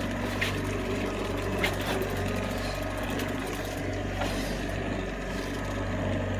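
Boat motor running steadily at trolling speed, a low even hum, with a few short light clicks scattered through.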